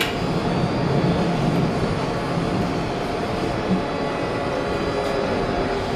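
A 1983 Budd Universal Transit Vehicle subway car running at speed, heard from inside the car: a steady rumble of wheels on rail with steady whining tones over it.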